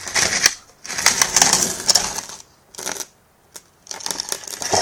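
Handling noise: four uneven bursts of rapid clattering and scraping as the Skil chainsaw is moved and turned over, the longest two in the first half and a shorter one near the end.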